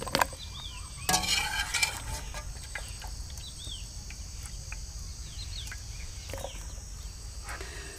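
Boiled potato pieces tipped from the cooking pot into a clay bowl, a short clatter of dishware about a second in after a single click. Then a steady chirr of crickets with a few brief bird chirps.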